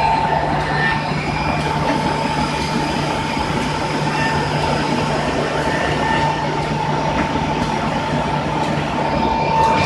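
Multi-functional edge sanding machine running steadily: a low hum and a higher steady whine over a continuous rushing noise.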